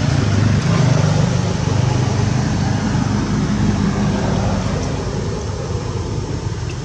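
A motor vehicle's engine running close by, a steady low rumble that is loudest about a second in and slowly fades.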